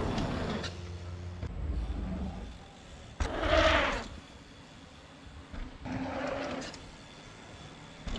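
Transition TR11 mountain bike ridden fast down a dirt freeride trail: tyre noise and wind rush, with a sharp knock about three seconds in followed by a short loud rush, and another rush about six seconds in.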